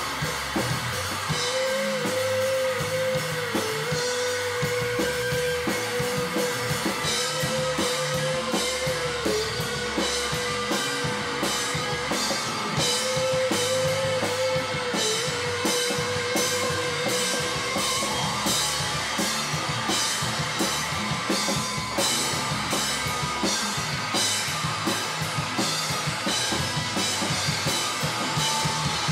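Live rock band playing an instrumental passage: drum kit with regular cymbal strikes under guitar, and a long held note that dips in pitch every few seconds during the first half.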